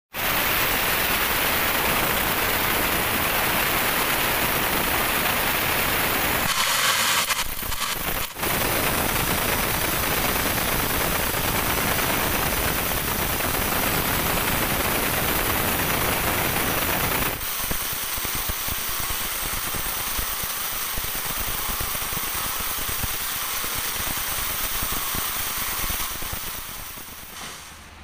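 Large sawmill band saw cutting through a dry teak log: a loud, steady, rasping noise. It breaks briefly about seven to eight seconds in, runs a little quieter after the middle, and fades out near the end.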